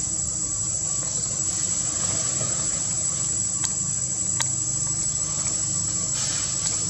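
Steady high-pitched insect drone over a low, even rumble, with two short sharp clicks around the middle.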